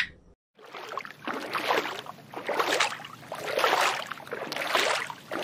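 After a brief gap, water sloshing and rushing in swells about once a second.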